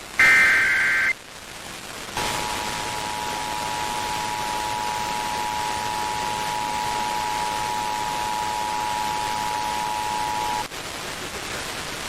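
Emergency Alert System broadcast over radio static: a final one-second screech of the SAME digital header data, then about a second later the EAS two-tone attention signal, a steady dual tone held for about eight and a half seconds before it cuts off, announcing a test alert.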